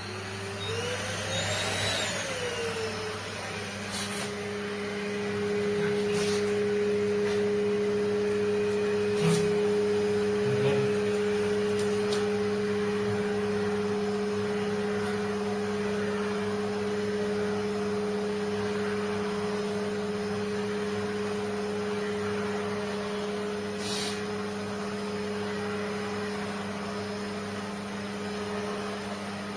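Pet grooming vacuum with clipper attachment running with a steady hum, starting up about three seconds in and settling to a constant pitch. A few sharp clicks are heard over it.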